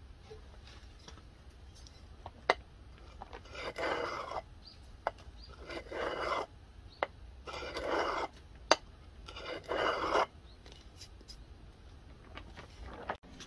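Steel knife blade honed on the unglazed bottom rim of a glass bottle: four scraping strokes about two seconds apart, with a few sharp clicks between them.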